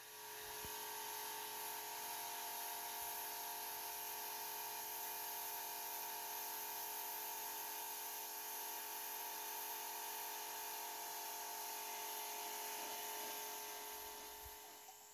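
Electric pressure washer running: a steady motor whine over the hiss of the water jet spraying a concrete wall. It dies away near the end.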